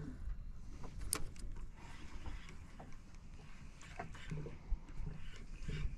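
Quiet low rumble of wind and water around a small fishing boat, with a sharp click about a second in.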